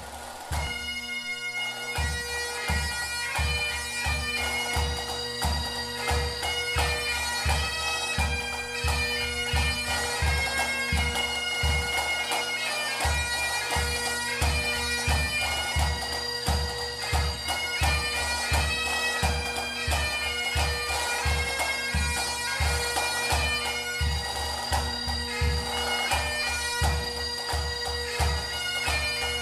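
Pipe band music: bagpipes playing a tune over their steady drones, with a regular bass drum beat coming in about two seconds in.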